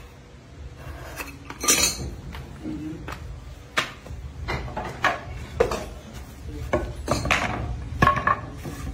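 Metal hand tools, a chisel and a knife, clinking and knocking on a concrete floor as they are handled: a dozen or so irregular sharp knocks, the loudest about two seconds in and near the end.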